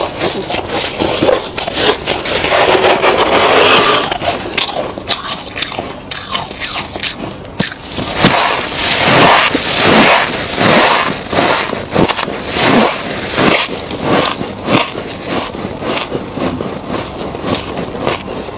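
Gloved hands scraping and scooping soft frost from the walls of a chest freezer, then mouthfuls of the freezer frost crunching as they are bitten and chewed. The loudest crunching comes about halfway through, followed by a run of steady chewing crunches.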